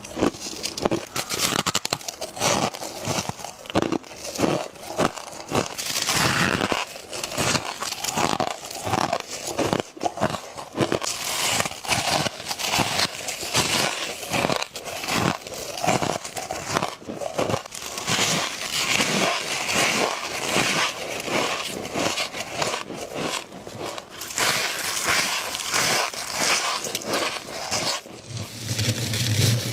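Close-miked bites into frosty ice: a continuous run of sharp crunches and crackles, one bite after another.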